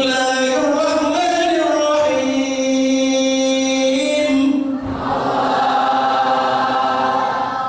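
Chanted singing through a microphone: one long, steadily held note lasting about four and a half seconds, then a second held note on a different pitch.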